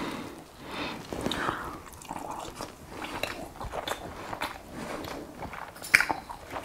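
A man chewing boiled sea bream with his mouth open, close to the microphone: a steady run of wet chewing and small mouth clicks. A sharp click about six seconds in is the loudest sound.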